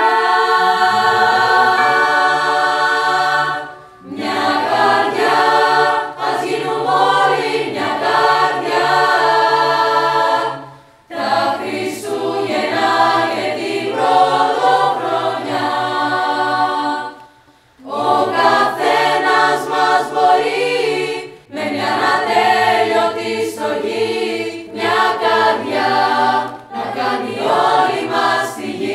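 School choir singing a Christmas song in phrases, with short breaks between phrases about 4, 11, 17 and 21 seconds in.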